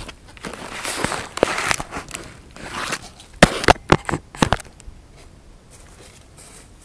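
Rustling and crunching handling noise, then a quick run of about six loud, sharp knocks around three and a half to four and a half seconds in.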